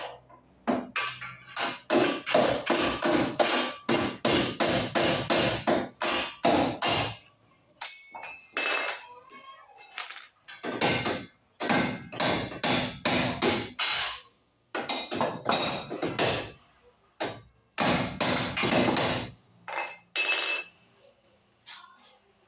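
Repeated hammer blows on metal in quick runs of about three strikes a second, with short pauses between runs and a lull near the end: hammering on a Fiat Uno's steering knuckle and wheel-bearing hub to free it.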